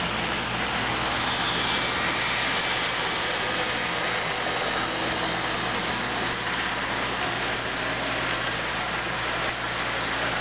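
Model trains running on a layout: a steady whir of small electric locomotive motors and wheels rolling on the rails.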